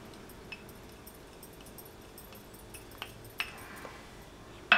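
Quiet kitchen room tone with a steady low hum and a few soft clicks of utensils and glassware as ground black pepper is added to a tall drinking glass, then a sharp ringing clink of glass right at the end.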